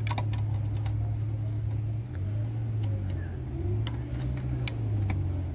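Small sharp plastic clicks and taps as the multi-pin LVDS video cable connector is handled and pushed into its socket on the TV panel's board, over a steady low hum that shifts in pitch about two seconds in.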